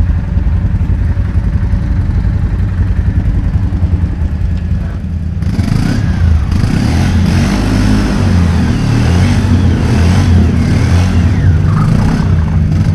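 ATV engine running at a steady low idle, then revving up and down from about five seconds in.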